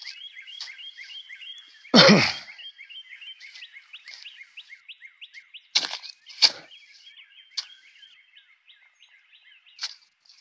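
Birds chirping in fast, high repeated notes, several a second, with one short vocal sound about two seconds in and a couple of sharp crackles, likely footsteps in dry leaves and brush, a few seconds later.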